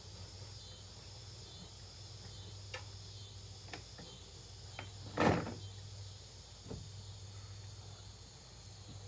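Crickets chirping over a steady low hum, broken by a few sharp pops, the loudest about five seconds in.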